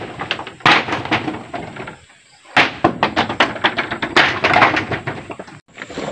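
Rapid clattering and cracking of hard objects in bursts, about three times, each starting sharply and trailing off.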